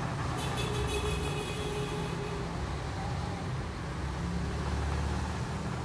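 Steady low background rumble, with a marker writing on a whiteboard and squeaking faintly during the first two seconds.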